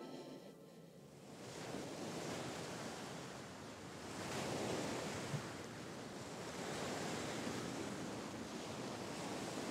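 Ocean surf washing onto a sandy beach: a steady rush of breaking waves that fades in about a second in and swells around the middle.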